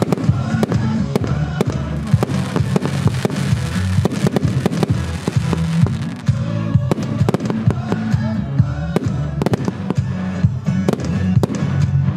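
Diamond "Revolution" firework going off in a rapid, irregular series of bangs and crackling bursts, with music playing underneath.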